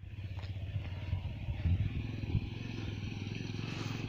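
Bajaj Pulsar 150's single-cylinder engine running steadily at low speed as the motorcycle is ridden down a rocky dirt trail, with a couple of low thumps about one and a half and two and a half seconds in.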